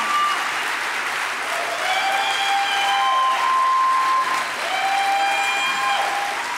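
Audience applauding steadily, with several long voiced calls from the crowd that rise and then hold over the clapping.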